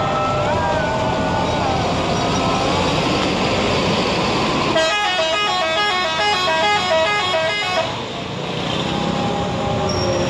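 Indonesian bus 'telolet' horn playing its quick multi-note melody for about three seconds, starting about halfway through, over steady bus and traffic noise.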